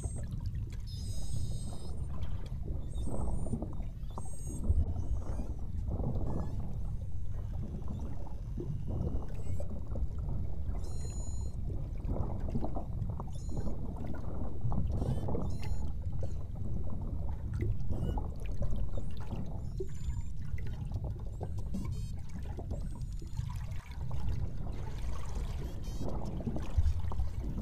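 Water sloshing and gurgling against a boat hull in uneven surges. Faint short high chirps and whistles come through now and then.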